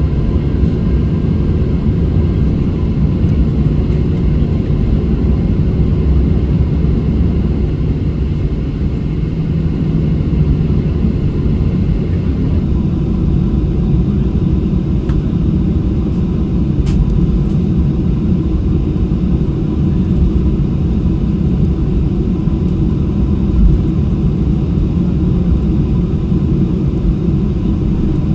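Steady low rumble of a Boeing 737-600's CFM56 jet engines and airflow, as heard inside the cabin. The higher part of the noise drops slightly about halfway through.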